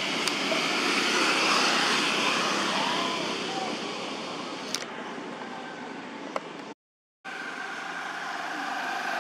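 Steady outdoor background noise with a few faint clicks. It drops out to silence for about half a second near the end.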